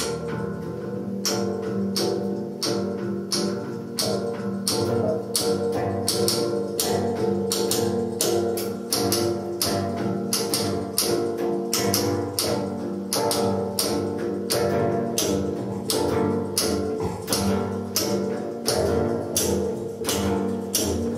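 Live experimental ensemble music: a sustained droning chord under a steady clicking, percussive pulse of about three strikes a second.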